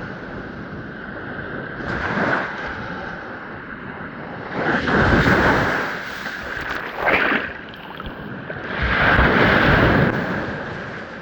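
Ocean waves breaking and washing up a sandy shore: surges of surf noise that swell and fade, the strongest about five seconds in and again near the end.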